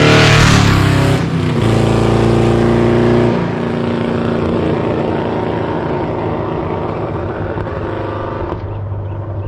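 Cammed Texas Speed 408 V8 in a 2004 Pontiac GTO, loud and revving hard, with a break in the note about a second in. About three seconds in the sound drops and then fades steadily as the car drives away.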